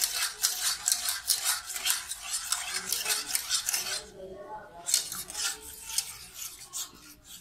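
Wire whisk beating milk-and-cheese white sauce in an aluminium saucepan, its wires scraping and clicking against the pan in quick strokes, several a second. The strokes stop briefly about four seconds in, then carry on more quietly.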